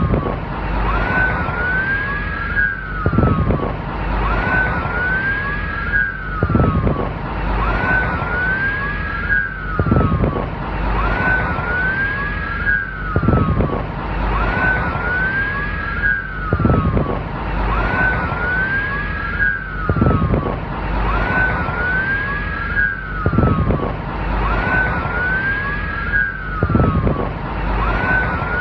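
Police car siren wailing in overlapping sweeps, each rising fast and sliding back down, over a steady low rumble. The same few-second stretch repeats about every three and a half seconds as a loop.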